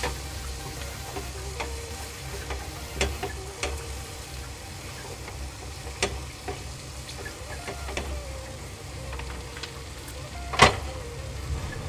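Wooden spatula stirring and scraping bitter gourd and onion in a non-stick kadai, with soft sizzling and scattered light clicks. One louder knock near the end.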